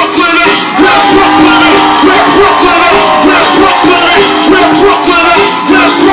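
A DJ's record playing loud over a stage sound system, a short burst of music cued on request.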